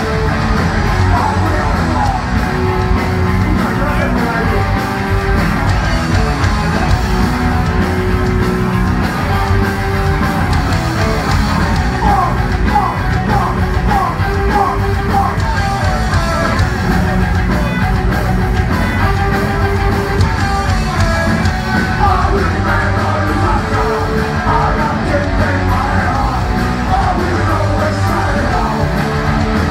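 Live punk rock band playing loud, with electric guitars and drums and shouted vocals over them.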